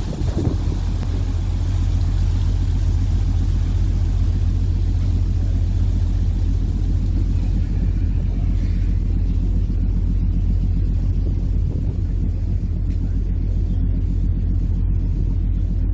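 Ferry Diagoras's diesel engines running, a steady low rumble and hum.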